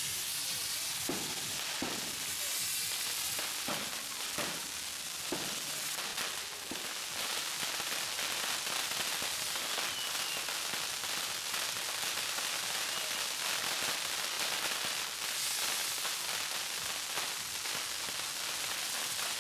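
Fireworks burning on a castillo firework tower: its spinning wheels hiss steadily. There are a few sharp pops in the first five seconds or so.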